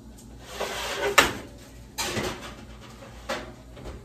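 Oven being loaded and shut: metal clatter of the rack and dishes, with a sharp clunk about a second in as the oven door closes, then a few lighter knocks.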